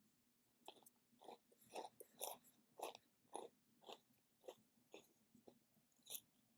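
A person chewing crunchy food close to the microphone, with steady crunches about twice a second.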